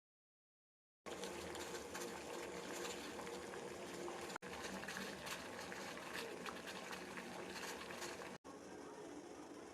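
Kadha, a herbal decoction, bubbling at the boil, with a steady fizzing and crackling. It starts after about a second of silence and breaks off twice at sharp cuts, quieter after the second.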